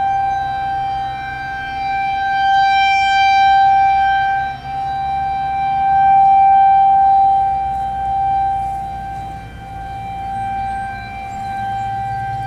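Federal Signal 2001-SRNB rotating electromechanical warning siren sounding its steady alert tone during a test, holding one pitch. Its loudness swells and fades over several seconds as the rotating horn sweeps toward and away from the listener.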